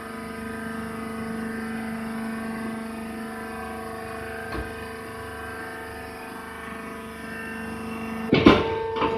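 Hydraulic wood shavings baler running with a steady machine hum. A loud clanking knock comes near the end.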